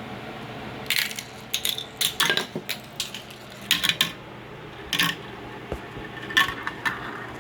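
Several steel marbles clattering and clicking through Gecko Run wall-mounted marble run track pieces, with sharp metallic clicks coming at irregular intervals.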